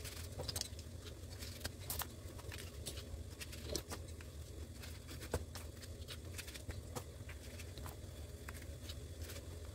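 Faint, scattered clicks and light taps of a spoon and hands filling slit bitter gourds with salt and laying them in a steel plate, over a low steady hum.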